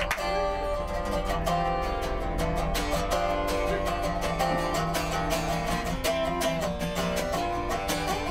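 Instrumental music of picked acoustic guitar playing a steady, even tune.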